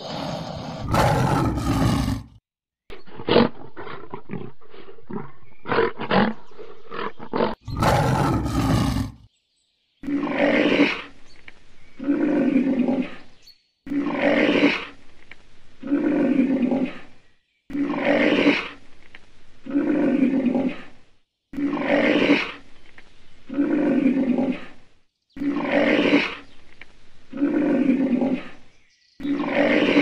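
Loud animal calls: two long harsh blasts with a run of sharp clicks between them, then a deep pitched call repeated about every two seconds.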